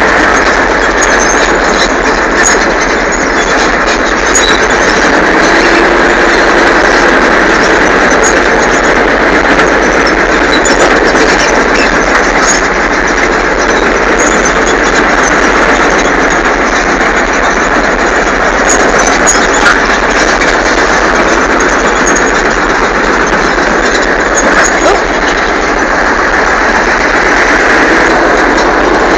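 Sexton self-propelled gun on the move, heard from on board: its Continental R-975 radial engine running and its tracks squealing, a loud, steady din.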